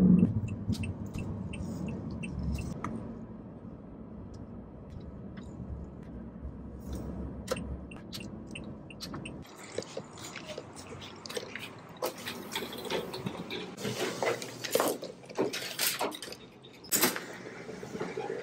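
Low rumble of road and engine noise inside a moving car. After a cut about halfway, irregular clicking and rattling from a wire shopping cart being pushed.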